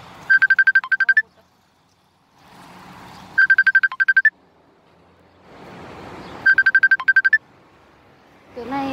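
Electronic ringtone ringing: three rapid trills of high beeps, each about a second long and about three seconds apart, each led in by a rising whoosh.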